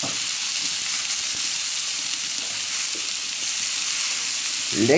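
Duroc pork fillet and leek skewers sizzling steadily on a hot steel fire plate (plancha).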